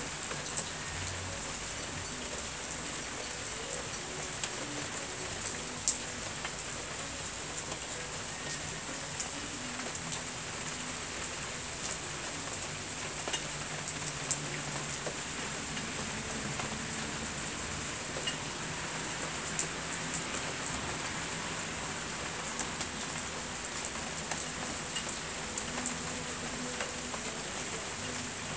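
Steady rain falling, with scattered sharp ticks of drops landing close by, the loudest about six seconds in.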